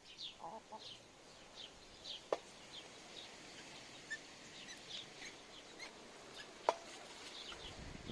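A hen clucking softly: a few low clucks about half a second in, then two short, sharp clucks, the loudest sounds here, about two seconds and six and a half seconds in. Small birds chirp over and over in the background.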